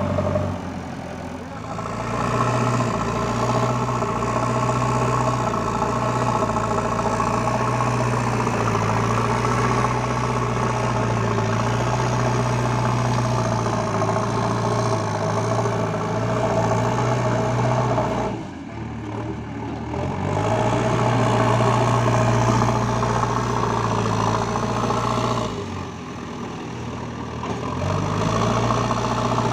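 Heavy diesel engine of earth-moving machinery running steadily under work. Its note drops briefly three times: near the start, about two-thirds through, and near the end.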